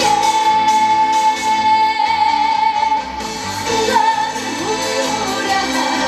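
A young female singer singing live into a microphone over loud amplified backing music, holding one long note for about the first three seconds before moving on through the melody.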